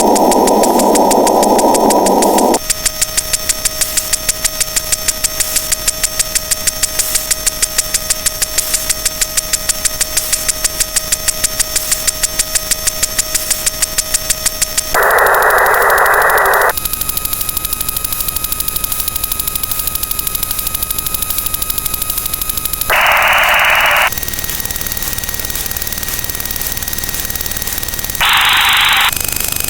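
Synthesized electronic sound effects. Four bursts of filtered hiss, each higher in pitch than the last, cut in and out abruptly, with layered steady electronic tones that change at each burst. A fast, even ticking pulse runs through the first half.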